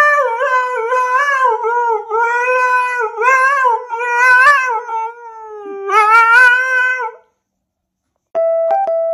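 A dog howling in long, wavering drawn-out notes for about seven seconds, then stopping. Near the end, after a short silence, a keyboard melody of steady notes begins.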